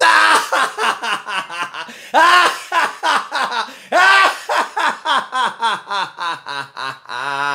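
A man laughing loudly and at length: a long run of ha-ha bursts with several very loud peaks in the first half, going on in quicker, softer pulses of about three a second.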